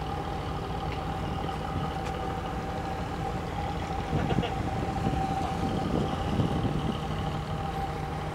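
Boat engine running steadily: a constant drone with a held, higher hum over it.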